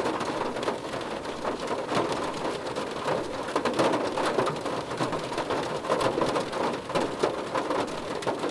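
Rain falling on a car roof: a dense, steady patter with many sharp individual drop strikes.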